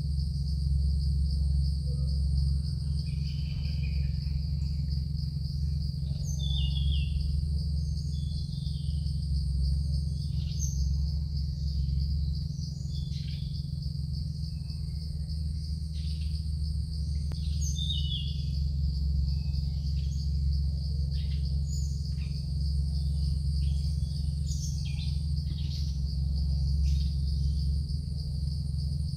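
Forest insects trilling steadily at a high pitch, with short bird chirps scattered over it, above a steady low hum.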